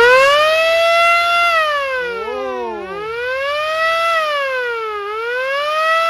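Siren-type car horn sounding a wailing siren tone, its pitch sweeping up and falling back down about three times.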